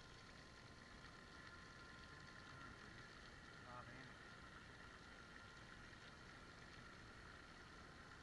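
Faint steady splashing of a jet of water from a Maxzone 1100 GPH bilge pump, shooting out of the open end of a flow meter onto gravel.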